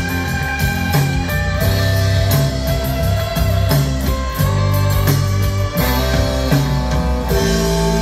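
Instrumental passage of a country-rock song played back from a recording session: electric guitar over bass and drums, with no vocals.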